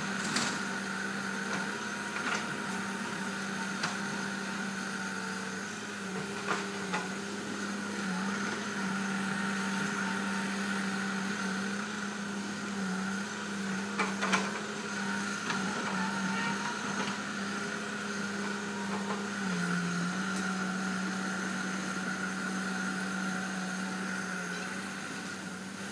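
Diesel engine of heavy logging equipment (excavator or bulldozer) running steadily, its note dipping briefly about three-quarters of the way through. A few sharp knocks or clanks are heard along with it.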